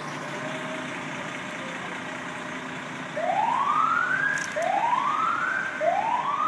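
Fire truck's engine running steadily, then about three seconds in its siren starts: three rising whoops, each climbing in pitch and then cutting off, about a second and a half apart.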